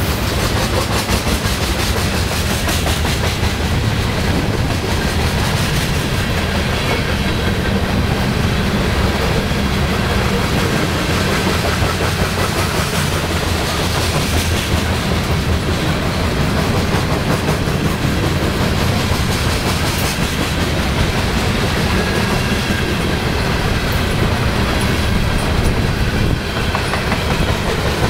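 BNSF grain train of covered hopper cars rolling past close by: a steady rumble with the clatter of steel wheels on the rails.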